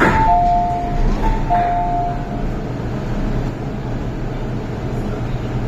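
Hong Kong MTR M-Train passenger doors opening at a station: a sudden clunk, then the two-note door chime sounding twice, high then low. Under it is the steady hum of the stopped train.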